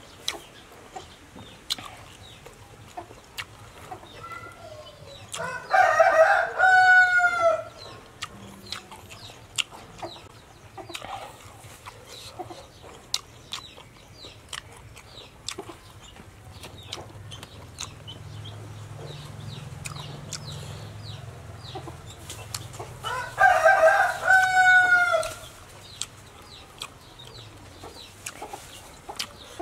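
A rooster crowing twice, each crow about two seconds long and some seventeen seconds apart, ending in a falling note. Between the crows come small clicks and smacks of a spoon in a ceramic bowl and of someone eating.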